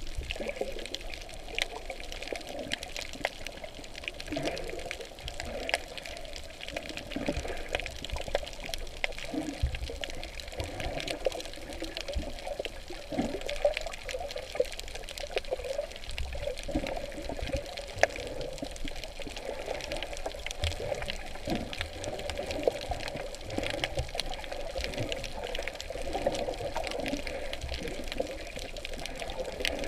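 Sea water sloshing and gurgling around a snorkeler's camera, with scattered sharp clicks throughout.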